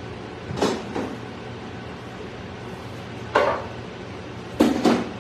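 Food being prepared: five sharp knocks of utensils on a hard surface, in three clusters, two about half a second in, one near three and a half seconds, and two close together near the end.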